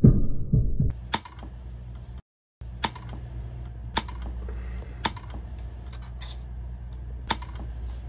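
A dull, fairly loud rustle-and-knock for about a second, then a faint steady low hum with sharp single clicks about once a second.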